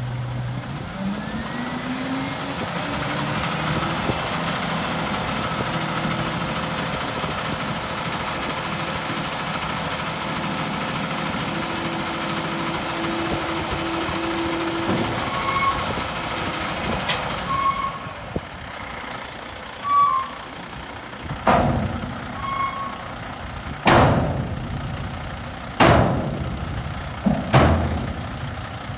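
The dump truck's 500 HP Cummins ISX15 diesel is idling, then revs up about a second in and holds at raised speed while the dump body is hoisted, dropping back about halfway through. In the quieter last third, five sharp, loud bursts stand out as the body comes down.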